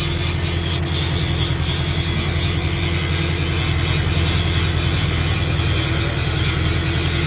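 A boat motor running steadily, a constant low hum with no change in pitch.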